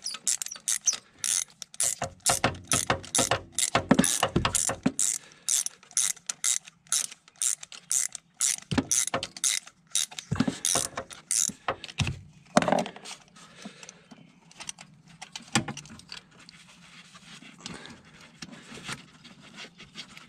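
Socket ratchet on a long extension clicking in quick, even strokes, about three a second, as it unscrews a spark plug. After about twelve seconds the clicks become fewer and quieter.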